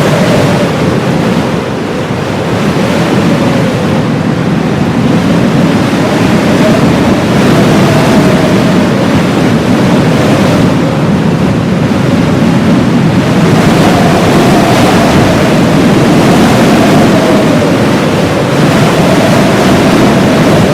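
Heavy blizzard wind: a loud, steady rushing that swells and eases every few seconds, with a thin wavering howl rising and falling above it.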